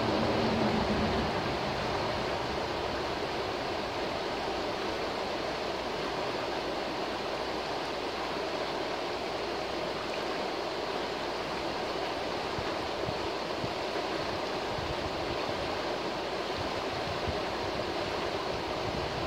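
A shallow, fast-flowing forest river rushing steadily over rocks and riffles.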